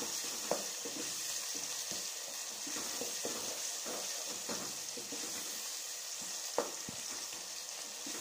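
Tomato-and-onion masala sizzling in a pot while a spatula stirs and scrapes through it, with a steady hiss and occasional sharp clicks of the spatula against the pot, the loudest one at about six and a half seconds.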